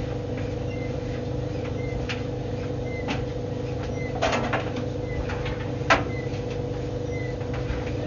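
White Knight tumble dryer running: a steady motor hum as the drum turns, with a few knocks as the load tumbles, the loudest about six seconds in, and a faint high chirp about once a second.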